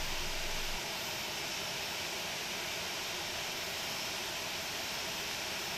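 Steady, even hiss with no tones or rhythm, dropping slightly in level about a second in.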